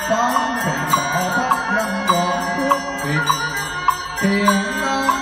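Buddhist sutra chanting in a steady, slowly shifting voice, kept in time by even strikes on a wooden fish (mokt'ak) about three times every two seconds.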